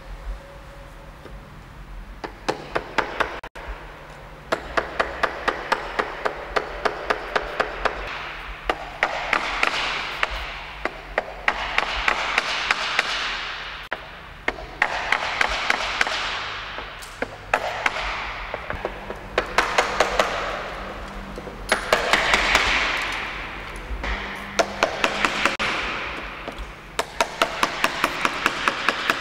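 Hand hammer striking a chisel in runs of steady blows, about three or four a second, to chip a painted mural free of a wall. Under each run of a few seconds a rushing noise swells and then fades.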